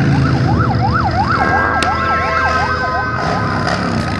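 A fast wailing siren rising and falling about three times a second, with a steady higher tone joining about one and a half seconds in. Underneath is the low rumble of motorcycle engines as the bikes ride past.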